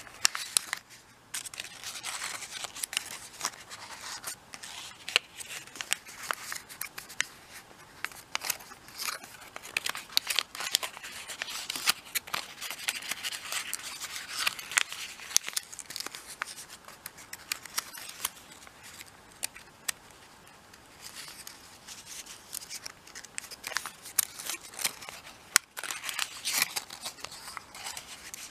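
Origami paper rustling and crackling as fingers fold, tuck and press creases, with many crisp sharp ticks from the paper; it eases off for a few seconds past the middle.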